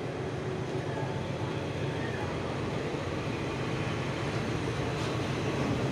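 State Railway of Thailand passenger coaches rolling past close by, their steel wheels making a steady noise on the rails.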